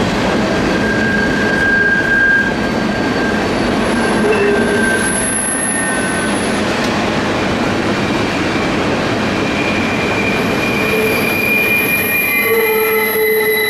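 A CN freight train's cars rolling past on steel rails in a steady rush of wheel noise, with high wheel squeals that come and go, one strongest a few seconds in and another near the end.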